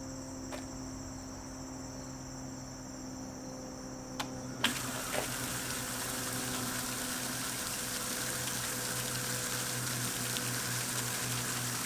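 Electric sump pump humming as it pumps water out of a bucket. About four and a half seconds in there is a knock, then a steady rush of splashing water from the discharge.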